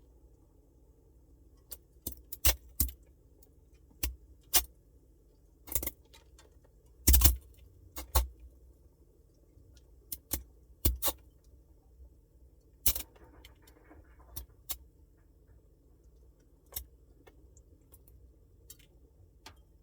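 Samsung Bespoke refrigerator making irregular sharp clicks and cracks over a faint steady low hum. The clicks come at uneven intervals, with the loudest cluster about seven seconds in.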